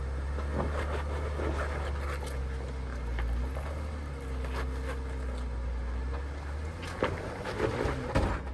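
Jeep Wrangler Unlimited engine running at low revs while it crawls up a slickrock ledge: a steady low rumble whose pitch rises and falls a little with the throttle, and scattered clicks and crunches from the tyres on rock and grit. The rumble drops away about seven seconds in.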